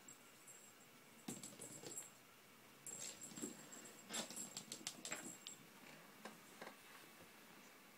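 Quiet clicking and rattling in two bouts, about a second in and from about three to five and a half seconds in, with a thin high jingle running through each: a plastic lattice ball toy with a bell inside rolling across a laminate floor.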